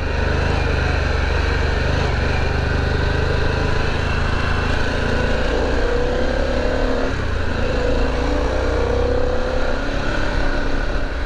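Motorcycle riding along, its engine running steadily under a constant rush of wind on the rider's microphone. In the second half a tone rises in pitch twice.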